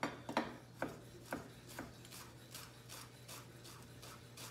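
Chef's knife chopping fresh curly parsley on a wooden cutting board: a run of knocks about two a second, the first few loudest.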